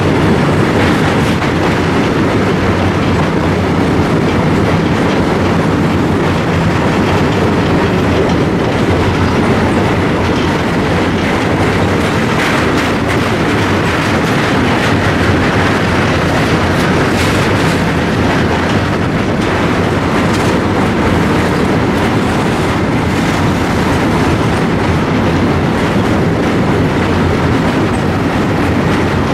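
An Indian Railways goods train's covered wagons rolling past close by over a steel bridge: a steady, loud rumble and rattle of wheels on rails, with a few sharper clanks in the middle.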